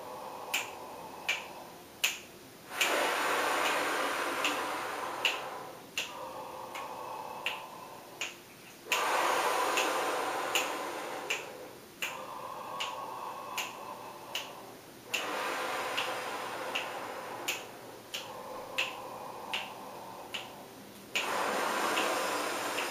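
A person taking slow, deep breaths through an open mouth, long airy breaths of about three seconds alternating between a louder, brighter breath and a quieter, duller one, four counts in and four counts out. A steady sharp click about every 0.7 seconds keeps the count.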